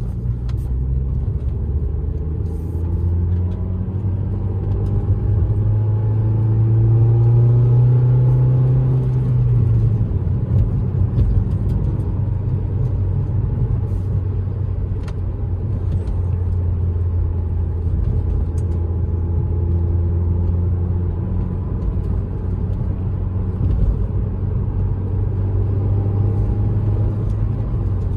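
Ford SVT Focus's 2.0-litre four-cylinder engine heard from inside the cabin while driving: the engine drone climbs in pitch and loudness over the first eight seconds or so as the car accelerates, falls away about ten seconds in, then holds steady at cruise with road rumble.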